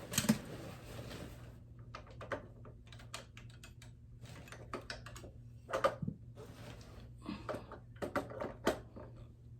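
Scattered light clicks and taps of small objects being handled, coming irregularly with a few louder knocks near the middle and toward the end.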